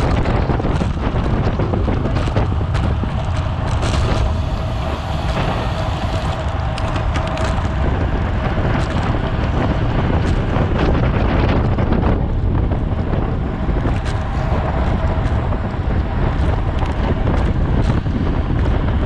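Loud, steady wind buffeting on the microphone of a camera mounted on a racing bicycle at speed, with scattered sharp clicks and a faint steady hum that comes and goes.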